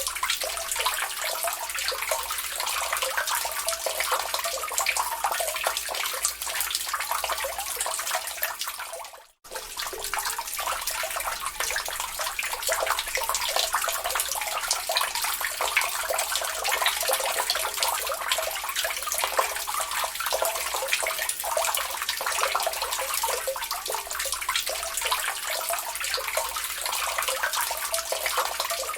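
Water drips falling into a lake, a dense, steady patter of many small splashes. It dips almost to silence for a moment about nine seconds in, then comes straight back.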